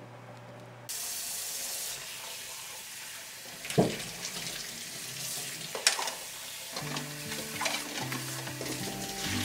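Cold kitchen tap water running into a pot of freshly hard-boiled eggs in a steel sink, cooling them; the flow starts suddenly about a second in. Two sharp knocks come as the eggs are stirred with a utensil, and soft music comes in near the end.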